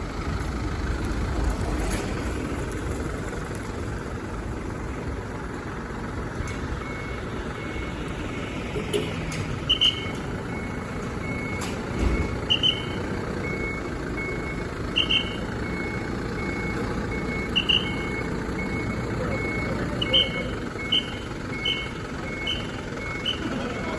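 Fire engine idling with a steady low engine rumble. From about six seconds in, a short high electronic beep repeats evenly, joined by higher chirps that come every couple of seconds and then faster near the end.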